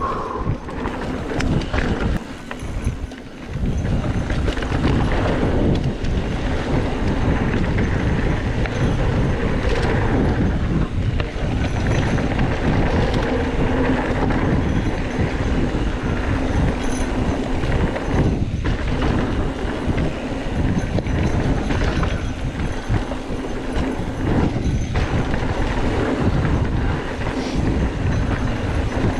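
Mountain bike riding fast down a dirt singletrack: a dense, continuous rattle of the bike's frame and parts and the knobby tyres over rough ground. It eases off briefly about three seconds in.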